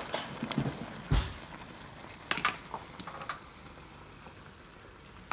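Chicken and vegetable stir-fry sizzling and bubbling in a wok of thickened sauce, with a few sharp knocks and scrapes of a cooking utensil against the pan in the first three seconds, the loudest about a second in.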